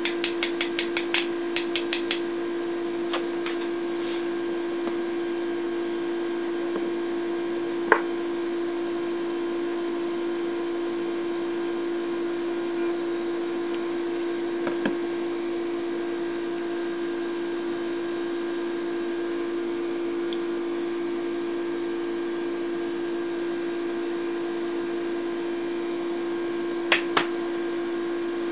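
A steady electrical hum runs throughout. Over it, metal spoons clink against each other and the tub as sticky agave nectar is scraped off a measuring tablespoon: a quick run of small clicks at the start, single sharp clinks at about 8 and 15 seconds, and two close clinks near the end.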